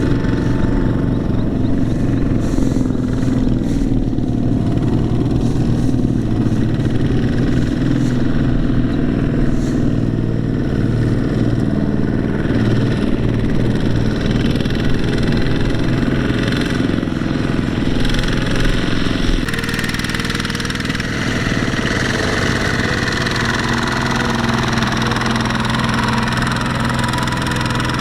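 Diesel engine of farm machinery running steadily with a fast, even firing beat. About two-thirds of the way in, the sound shifts abruptly to a different engine note.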